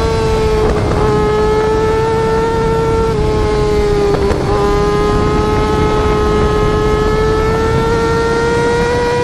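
Yamaha YZF-R6 inline-four engine screaming at very high revs, one steady high-pitched note held under throttle. It breaks briefly about a second in and again around four seconds in, like quick gear changes, and climbs slowly in pitch toward the end.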